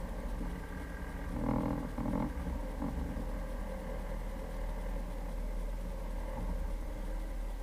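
Jeep Cherokee engine running steadily, with a louder surge about a second and a half in that lasts under a second.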